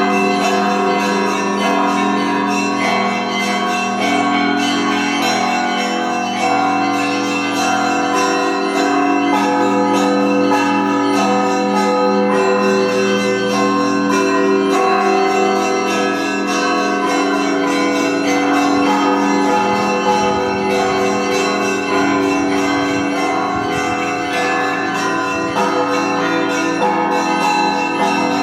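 Russian Orthodox church bells ringing a festive peal: many bells struck in a fast, unbroken rhythm, with small high bells chiming over lower, heavier bells whose notes change every second or two.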